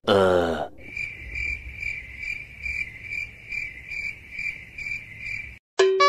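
Cricket chirping sound effect, the stock gag for an awkward silence: an even, high chirp repeating about two and a half times a second. A short falling sound comes just before it, and a short steady tone near the end.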